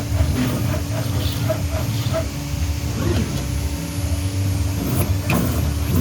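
CNC router at work: its 5.5 kW spindle running with a steady hum over a low rumble, with short regular blips from the machine's motion.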